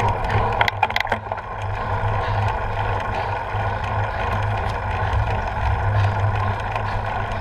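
Steady rumble of wind and road vibration on a bicycle-mounted camera as a road bike climbs, with a few sharp clicks about a second in.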